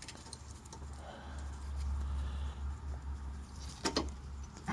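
Bolts and metal parts being handled during motorcycle gearbox-mount reassembly: a few faint clicks, with two sharper metallic clicks near the end, over a low steady rumble.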